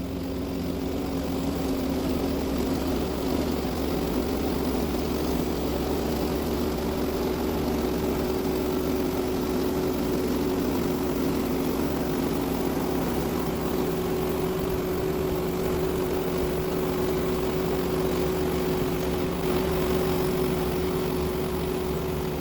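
Portable sawmill's engine running steadily, with a constant whine over its hum.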